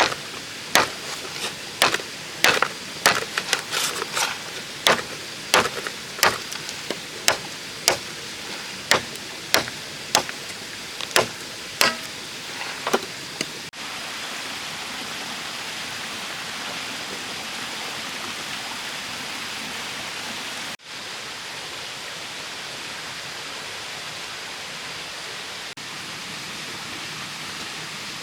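A hand tool striking bamboo over and over, about twenty sharp blows at an even pace of roughly one every two-thirds of a second. The blows stop suddenly about 14 seconds in, leaving a steady rushing noise like running water.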